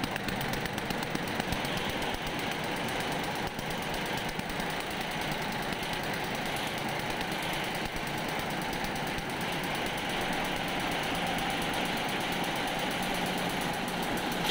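Multi-head computerized embroidery machine running, its needle heads stitching in a rapid, steady clatter.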